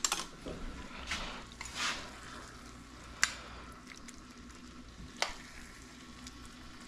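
A metal spoon scooping picadillo (ground beef with olives) out of a stainless steel skillet into a bowl, with a few light clicks of the spoon against the pan, over a faint steady sizzle from the pan.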